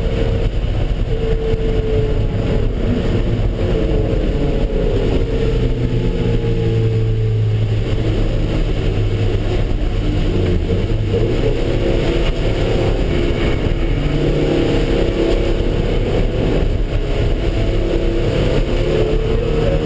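Car engine working hard on a circuit lap, its pitch rising and falling as it accelerates and eases off, over steady road and wind noise.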